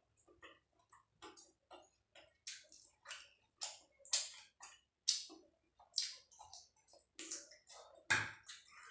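Mouth sounds of eating close to the microphone: chewing and lip smacks, a run of short irregular clicks about one or two a second.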